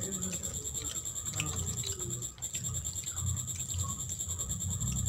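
Fingers mixing and scraping rice and dal curry on a plastic plate, with soft irregular squishing and small clicks.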